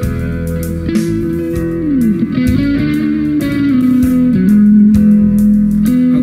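Church worship band playing an instrumental introduction: an electric guitar holds a sustained lead melody with bends and slides between notes, over drums and bass.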